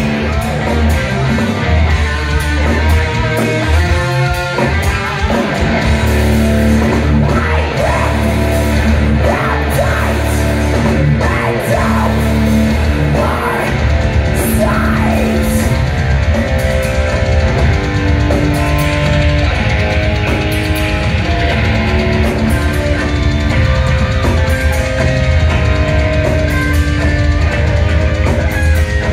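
Live death metal band playing loud through the club PA, heard from the audience: distorted electric guitars, bass and drums, with lead guitar lines bending up and down.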